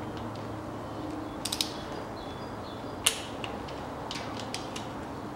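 Ratcheting torque wrench clicking in short strokes while tightening small timing-chain tensioner bolts to 10 N·m. A quick run of clicks about a second and a half in, one sharp loud click about three seconds in, then lighter scattered clicks.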